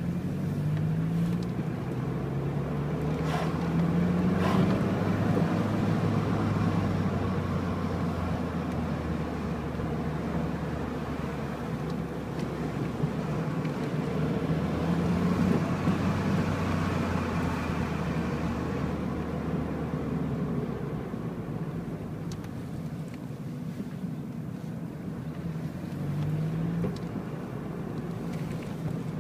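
Car driving on a mountain road, its engine note rising in quick steps over the first few seconds and again near the end, steadier in between, over tyre and wind noise.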